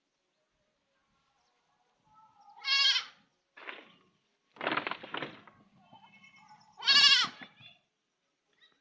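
Goat kid bleating: several separate calls of under a second each, one of them raspy and the last the loudest, after about two seconds of silence.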